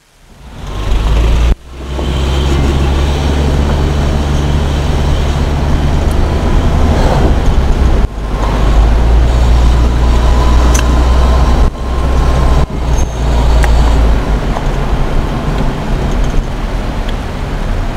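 Car engine and road noise heard from inside the cabin: a steady, heavy low rumble. It fades in at the start and cuts out briefly several times.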